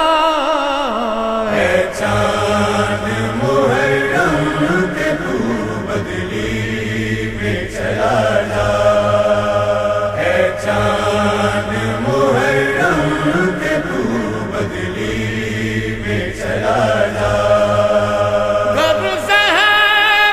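Music between sung verses of a noha: a wavering, chant-like melody over a steady low drone.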